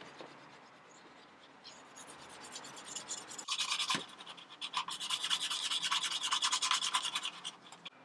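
Leather edge being burnished by hand with quick back-and-forth rubbing strokes on a leather tool sheath. The rubbing is faint at first and, from about halfway through, becomes loud and rapid, several strokes a second.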